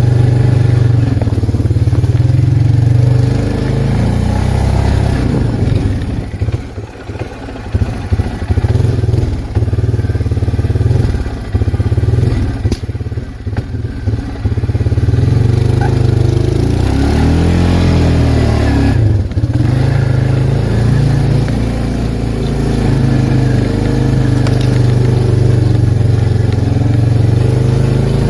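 Arctic Cat 366 ATV's single-cylinder four-stroke engine running steadily, with the throttle easing off and chopping for a few seconds about a third of the way in. Later it revs up and back down once.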